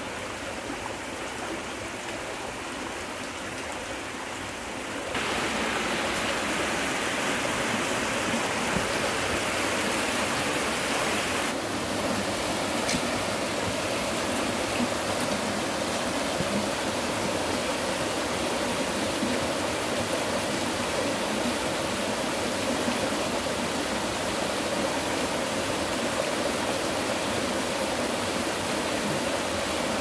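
Mountain valley stream rushing steadily. The rush jumps louder about five seconds in.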